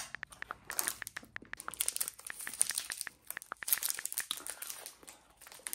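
Plastic wrapper of a mini chocolate bar crinkling and tearing as it is opened: a dense run of crackles.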